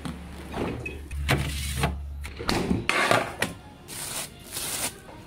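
A steady low hum with a few knocks as an appliance door is opened. From about two and a half seconds in, plastic cling film crinkles and rustles as it is handled over the dough balls.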